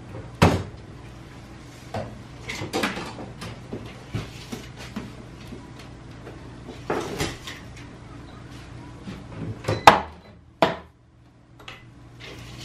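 Scattered clicks and knocks from a metal tape measure being handled against wooden framing, the loudest knock about ten seconds in, over a steady low hum.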